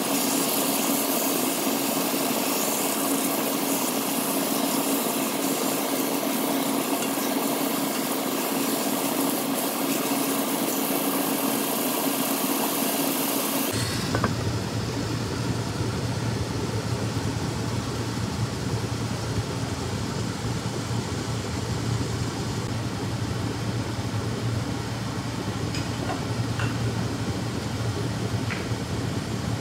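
Chicken pieces and onions sizzling in hot oil in a pot: a steady hiss over a low hum. About 14 seconds in the hiss drops away abruptly and a deeper steady hum takes over while the pot cooks under its glass lid.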